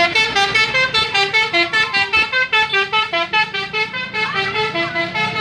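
Bus telolet horn, a Basuri multi-note air horn, playing a fast melody of about five notes a second.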